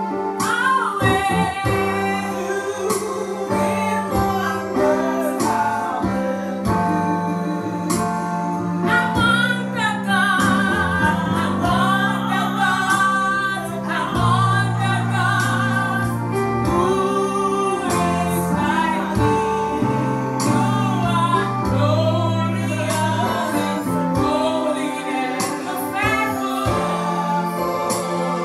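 Women singing a gospel worship song into microphones, accompanied by sustained chords on an electronic keyboard.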